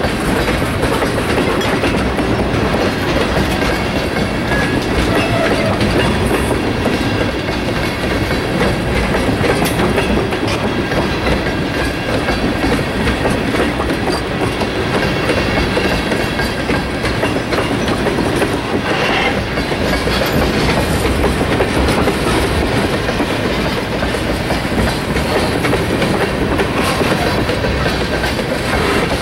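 Freight train of tank cars rolling past at steady speed: a loud, steady wheel-on-rail noise with the clatter of the cars.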